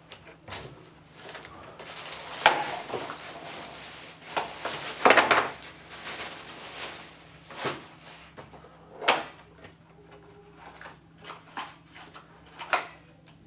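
Irregular knocks, clatters and rustles of a person sitting down at a table and handling objects on it, a few sharper knocks standing out, over a faint steady low hum.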